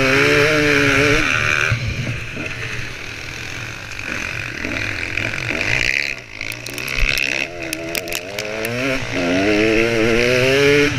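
Motocross dirt bike engine heard from the bike's own camera mount. It revs high at first, eases off for a few seconds, then climbs in pitch again as it accelerates. Wind rushes over the microphone, and a scatter of sharp clicks comes just past the middle.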